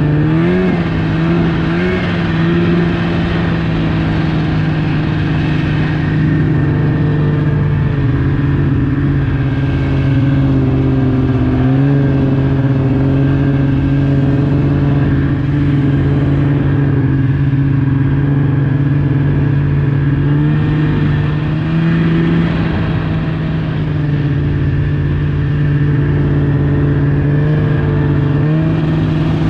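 Snowmobile engine running steadily at trail-cruising speed, heard from the sled itself. Its pitch rises as the throttle opens about a second in and again near the end.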